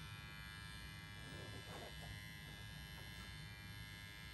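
Dremel rotary tool running steadily, a faint, even electric whine.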